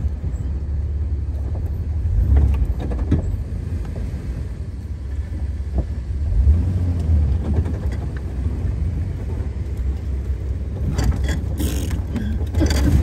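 Jeep Wrangler TJ engine running at low speed, heard from inside the cabin as a steady low rumble while it crawls over dirt, with scattered light knocks. A louder burst of noise comes near the end as it heads down a steep bank.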